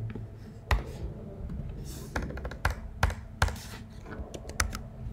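Computer keyboard being typed on: about a dozen short, irregular key clicks.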